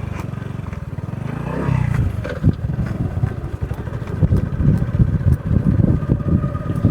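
Small motorbike engine running under way over a rough, bumpy track, with scattered clattering knocks.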